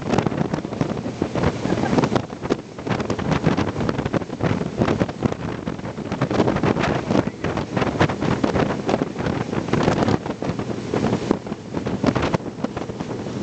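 Wind buffeting the microphone aboard a speedboat running fast, over the rush of water and spray along the hull.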